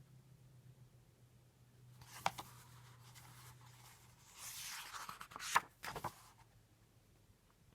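Paper pages of a picture book being handled and turned: a soft rustle about four and a half seconds in, with a few sharp paper clicks around it, over a faint low hum that stops about halfway through.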